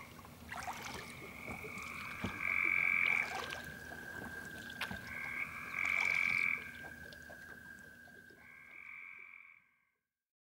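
Frogs calling: several held, trilling calls about a second long each, with scattered clicks. The sound fades and cuts off near the end.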